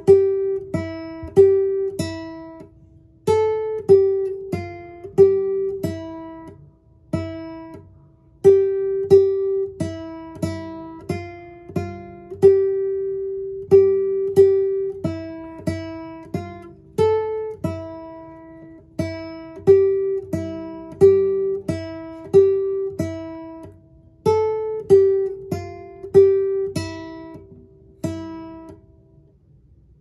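Nylon-string classical guitar played fingerstyle: a simple melody of single plucked notes, each with a low bass note beneath, at an even pace of about three notes every two seconds. The playing stops a little before the end and the last note rings out.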